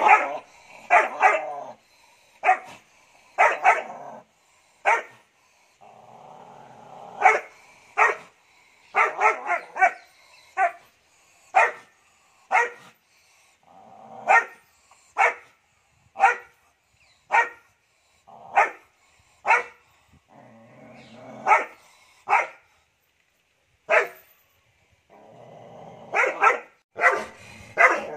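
Three-month-old Doberman puppy barking aggressively, short single barks about one a second with a few quicker pairs, and low growling in some of the pauses.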